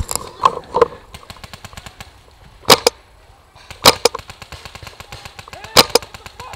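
Paintball markers firing: three loud sharp pops, each a quick double crack, spaced about one to two seconds apart, over a steady patter of fainter shots from across the field.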